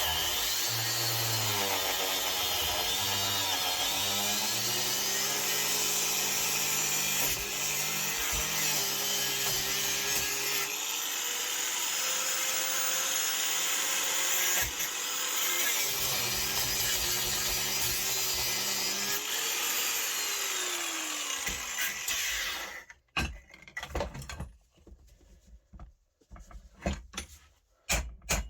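A power tool cutting into the metal differential housing, its motor pitch rising and falling under load, stopping suddenly about 22 seconds in. Sharp knocks follow, ending in a quick even run of taps.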